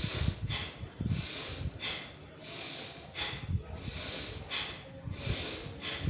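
Rapid, regular forceful breaths through the nose, about one and a half a second, each a short hissing rush with a low thud under it.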